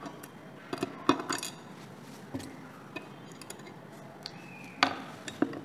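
Small metal tools and hard disk drive parts clicking and clinking as the drive is taken apart: a handful of light, sharp taps, the loudest near the end, with a brief squeak just before it.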